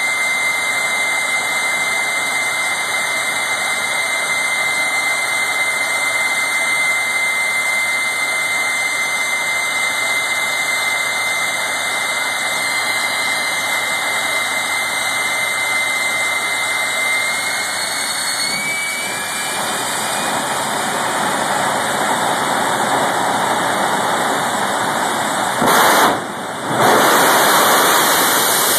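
Jet engine of a jet-powered Kenworth semi truck running with a steady high whine, the whine rising about two-thirds of the way in as it spools up. Near the end it breaks into a sudden, much louder blast as the truck launches down the drag strip.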